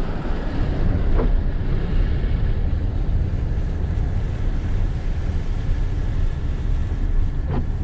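Steady low rumble of a car driving with a window open: road noise from the tyres and wind buffeting the phone's microphone.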